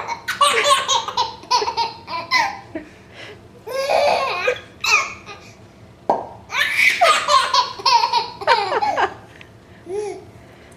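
Six-month-old baby boy laughing hard in repeated fits at a pop noise made with a thumb and mouth. One sharp pop about six seconds in sets off another long bout of laughter.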